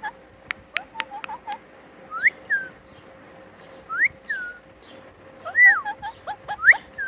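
Pet parrot making short whistled chirps, each one sweeping up and then down, about four times with pauses between. A quick run of sharp clicks comes about half a second to a second and a half in.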